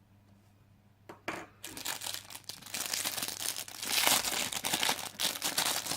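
Plastic packaging crinkling and rustling as an item is unwrapped by hand. It starts about a second in and grows louder and busier.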